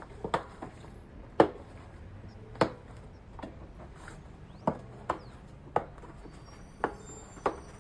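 Mountain bike tire bead being worked onto the rim by hand: about ten sharp clicks and snaps at irregular intervals as the rubber bead slips and pops over the rim edge, the loudest about a second and a half in.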